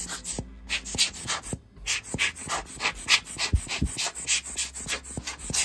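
Cleaning cloth rubbed quickly back and forth over the plastic body of a Nikon N90s film camera, about four or five scrubbing strokes a second with a short pause about one and a half seconds in. There are a couple of dull knocks a little past the middle as the camera is handled.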